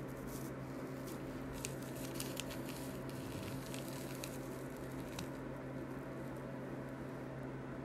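Calligraphy brush loaded with black ink dragging across hanshi paper, giving faint wet, scratchy brushing sounds that come and go for a few seconds, over a steady low hum.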